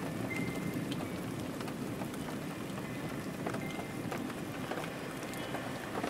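Steady rain noise: a dense low hiss of falling rain with many separate drop ticks pattering through it. A faint high ringing tone sounds briefly near the start.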